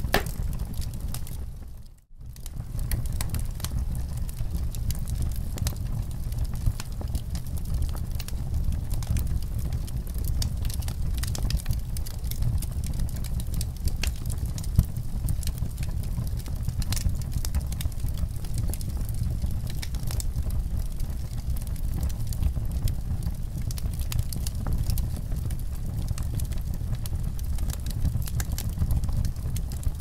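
Fire crackling with frequent small pops over a low, steady rumble. About two seconds in, the sound briefly drops out almost to silence, then fades back in.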